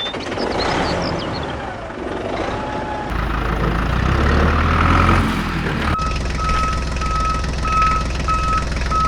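A vehicle's engine running, its deep hum growing stronger about three seconds in, then a reversing beeper sounding steadily about twice a second from about six seconds in.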